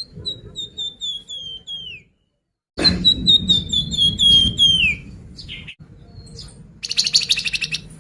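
Flamboyan songbird singing, a lure recording made to prompt a kept bird to sing: a phrase of about eight short whistled notes at much the same pitch, ending in a falling slur. The phrase comes twice, with a sudden cut to silence between, and a brief buzzy rattle follows near the end.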